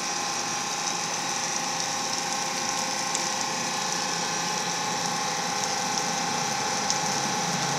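A high-pressure rescue lifting bag leaking at its edge: a steady hiss with a faint whistling tone in it, unbroken throughout. The leak is a failure of the bag, the kind of defect that routine testing of lifting bags is meant to find.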